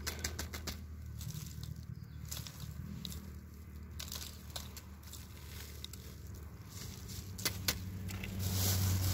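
Loose soil trickling from a hand into a plastic bag wrapped around a walnut graft, with crackling of the plastic and scattered small ticks, two sharper clicks near the end. A steady low hum runs underneath.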